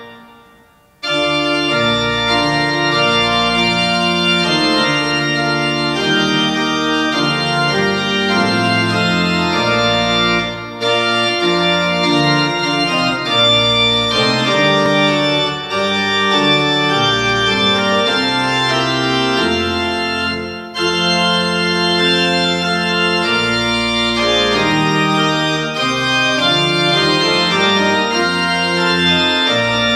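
Organ music: slow, sustained chords moving in phrases, starting about a second in after a brief pause, with short breaths between phrases.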